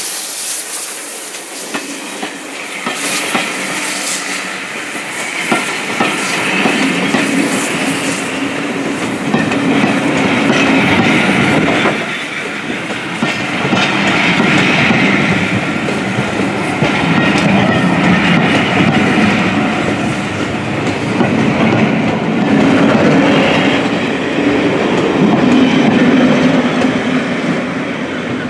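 Passenger coaches of a steam-hauled heritage train rolling slowly over a level crossing. The wheels clatter over the rail joints in a repeating clickety-clack that swells and eases every few seconds as each coach passes.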